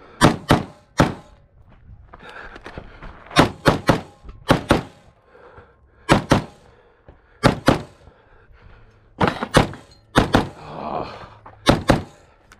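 Pistol shots fired in quick pairs, about nine pairs a second or two apart, each pair two sharp cracks in close succession.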